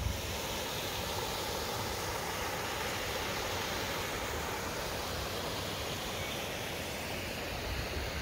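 Creek water rushing steadily over rocks and small cascades.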